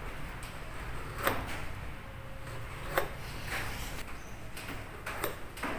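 A small pointed hand tool scraping and cutting grooves into the rubber sole of a sneaker, in a few short, sharp strokes at irregular intervals.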